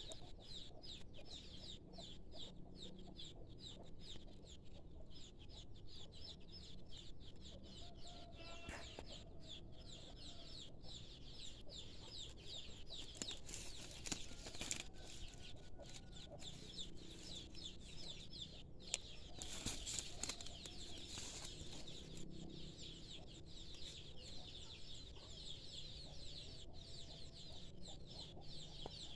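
Faint outdoor yard ambience: chickens clucking now and then over a steady high-pitched chirring.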